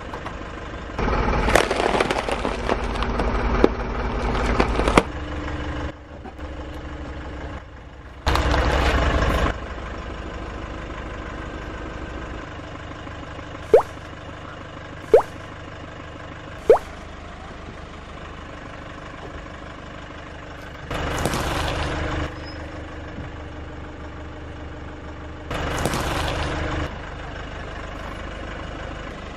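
Car engine idling steadily while a tyre rolls over and crushes a cabbage, with a loud crunching stretch of several seconds starting about a second in. Further loud bursts of crushing and squashing of soft toy objects follow. Three short sharp pops come in the middle, about a second and a half apart.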